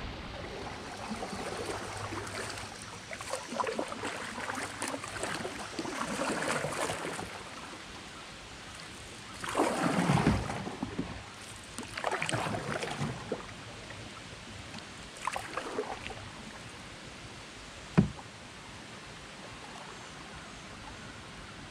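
Water sounds from a canoe on a shallow river: steady rippling with several swishing, splashing bursts of paddle and water a few seconds apart, and a single sharp knock near the end.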